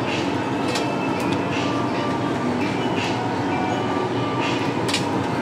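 Meat sizzling on a Korean barbecue tabletop grill: a steady hiss with scattered sharp pops of spitting fat.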